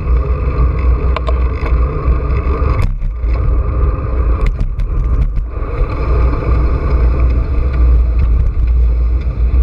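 Wind buffeting the microphone of a bicycle-mounted camera with tyre and road rumble as the bike rides along, loud and steady, with a few light clicks about a second in and again around three and five seconds in.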